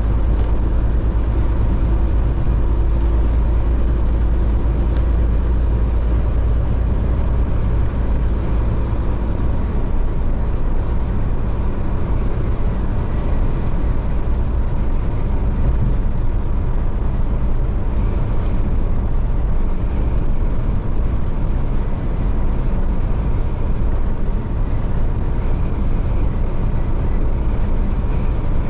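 Steady road noise of a car driving at highway speed: a constant low rumble that holds even for the whole stretch.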